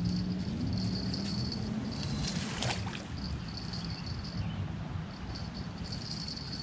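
Spinning reel whirring in short bursts as a hooked carp is played on the line, over a low wind rumble on the microphone, with a brief rush of splashing water about two and a half seconds in.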